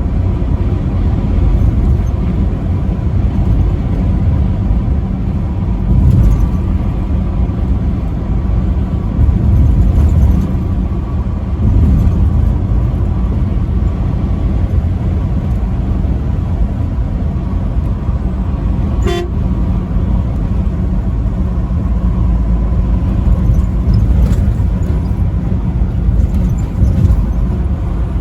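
Loud, steady low rumble of highway traffic, swelling briefly about six and ten seconds in, with a single short click about nineteen seconds in.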